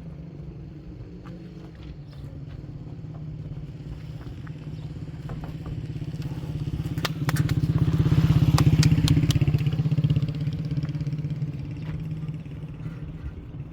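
A motorcycle engine running steadily. It grows louder about seven seconds in and eases off after about ten seconds, with a few sharp clicks while it is loudest.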